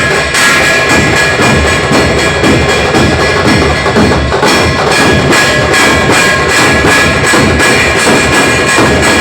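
A traditional Maharashtrian drum troupe (tafa) playing loud, fast, continuous drumming, with dense rapid strikes and a steady ringing layer on top.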